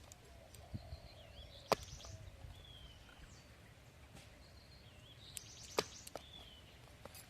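Two sharp knocks about four seconds apart, with a few fainter ones, over a bird in the background repeating a short whistled phrase twice.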